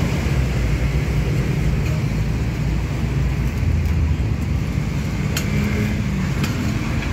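Diesel engine of heavy digging machinery running steadily, with a few light clicks in the second half.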